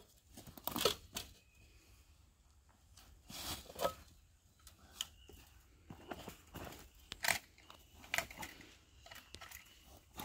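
Weeds and vines being pulled and torn out of a woven wire fence by gloved hands: several separate rough rustling, tearing bursts, the loudest about a second in.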